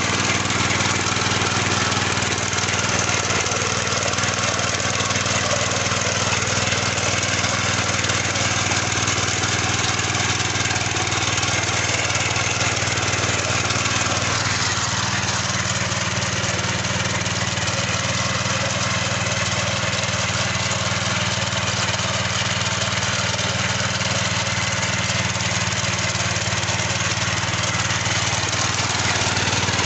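Small petrol engine of a walk-behind mini tiller running steadily under load as its rotary tines churn through soil.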